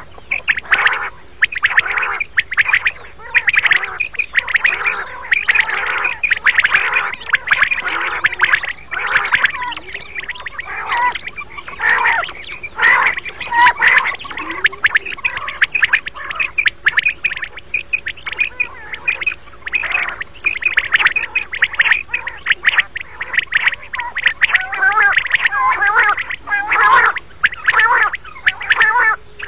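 Female common quail calling: rapid, raspy calls repeating one after another with hardly a pause, the kind of call played to lure quail for hunting.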